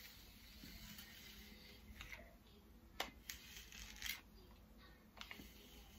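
Near silence with a few faint clicks and rustles about a second apart, from a flat-iron hair straightener being closed on and drawn through long hair.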